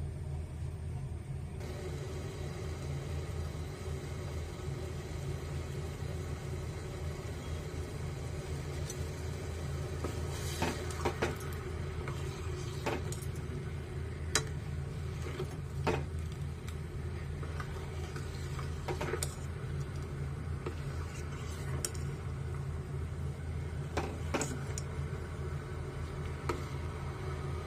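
A steel ladle stirring jaggery melting in water in a steel pot, knocking sharply against the pot's side about ten times from about ten seconds in, over a steady low hum.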